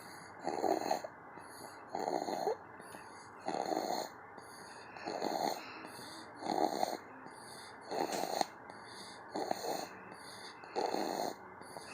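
Snoring hard in a steady rhythm: eight short, raspy snores, about one every second and a half.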